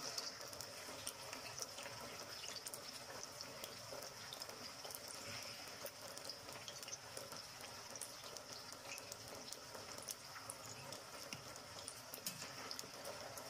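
Cut okra frying in hot oil in a pan: a steady sizzle dotted with many small crackles and pops.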